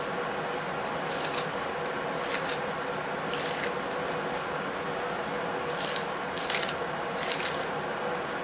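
Kitchen shears snipping through green onion stalks: several short, crisp snips at an uneven pace of about one a second, over a steady faint hum in the room.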